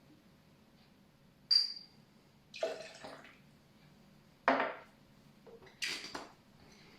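Bar tools being handled while mixing a cocktail: four separate clinks and knocks of glass and metal, the first with a short bright ring about a second and a half in, with a little liquid splashing.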